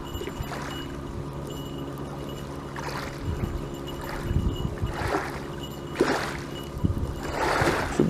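Small river waves lapping at a flooded bank in soft, irregular splashes about once a second, over a steady low hum.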